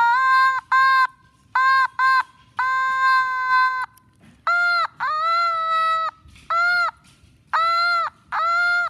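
Otamatone playing a tune of about ten electronic notes, some short and two held for about a second, each note's start and end bending in pitch as the mouth is squeezed open and shut. The notes from about halfway through are pitched higher than the first ones.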